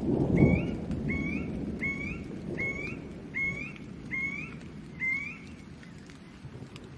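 A bird calling seven times in an even series, each note a short rising whistle, over rain and a low thunder rumble that fades during the first second or so.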